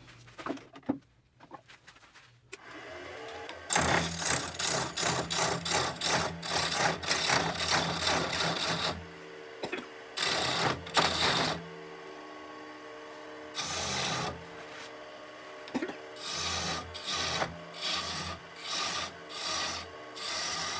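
A turning tool cutting into a red oak blank spinning on a wood lathe, a rasping scrape over the lathe motor's steady hum. There is one long cut of about five seconds, then several shorter cuts of a second or two each.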